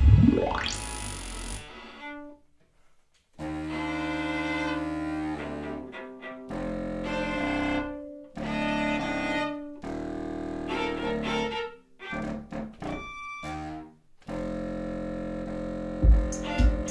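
Live contemporary chamber music for contrabassoon, viola and Korg Kaossilator: a steeply rising sweep at the start, a brief pause, then phrases of held low contrabassoon notes and bowed viola that start and stop abruptly. Low thumps come in near the end.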